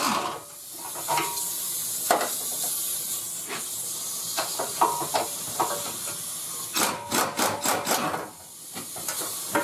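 Pneumatic impact wrench run in short bursts on a bolt, with a hiss of compressed air and metal clinks; the quickest run of bursts comes about seven seconds in.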